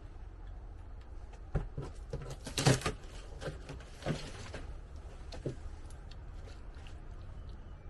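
Handling noises while a boxed Green Stalk vertical planter is unpacked: scattered knocks and clicks, with a brief rustle or scrape about two and a half seconds in and a weaker one around four seconds.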